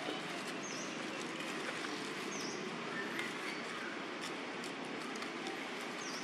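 Steady outdoor background noise with three short high-pitched chirps, each well over a second apart.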